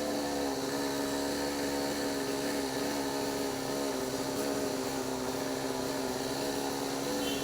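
Two-stroke chainsaw engine running at a steady, even pitch.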